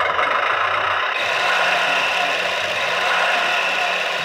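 Road Rippers CAT toy wheel loader playing its electronic diesel-engine running sound through its small built-in speaker: a steady, tinny, rasping engine noise that grows a little fuller about a second in.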